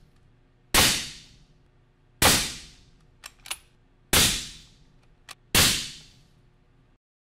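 Four suppressed rifle shots from a .308 Winchester fired through an AB Suppressor Raptor 7.62 six-stack with a 2-inch reflex mount, about one and a half to two seconds apart, each trailing off in under a second; they meter at about 131 dB peak at mid-gun. A few faint clicks come between the later shots.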